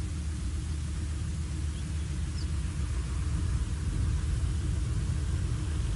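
Steady low rumble throughout, with two faint, brief high chirps about two seconds in.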